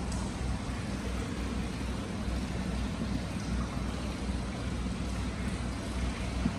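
Free-flowing hot spring water pouring through a round stone basin and spilling over its rim into the bath, a steady rush of running water.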